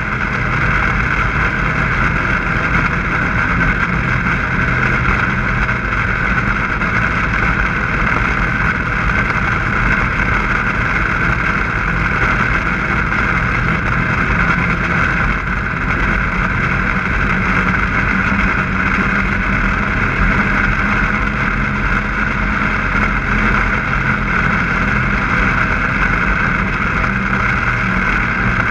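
Snowmobile engine running steadily at cruising speed while the sled travels across snow, heard close up from on the machine.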